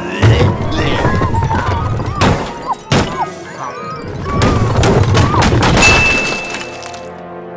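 Cartoon soundtrack: background music with high-pitched character voices and several thuds and crashes, plus a held high tone for about a second near the end.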